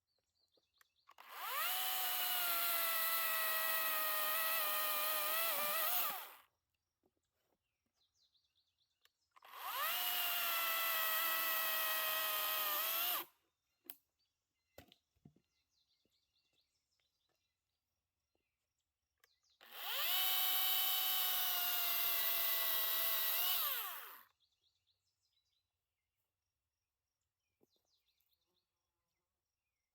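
WEN electric chainsaw run three times in bursts of about four to five seconds, its motor whine rising as it spins up and falling away as it winds down after each release of the trigger.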